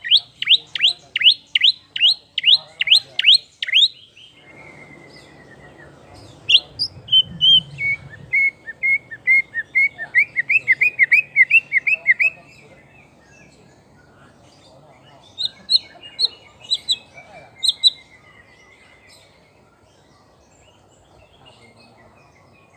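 White-rumped shama singing: a fast run of sharp downward-slurred whistles, about three a second, then a lower run of notes that quickens into rapid sweeping phrases, and a few separate high notes a little past the middle. The song falls quiet for the last few seconds.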